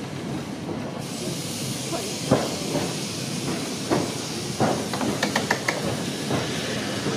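Heritage electric tram running slowly along street track, heard from the upper deck: a steady rushing noise with a few clunks from the wheels on the rails, and a quick run of short clicks about five seconds in.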